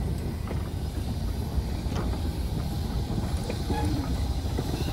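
Saxon IV K narrow-gauge steam locomotive moving slowly past as it pushes its train, a steady low rumble with a few light clicks from the wheels on the rails. Wind buffets the microphone.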